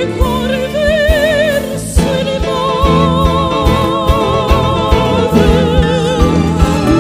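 A woman singing a ballad with wide vibrato, holding long notes, over a live band with drums, guitars and keyboard.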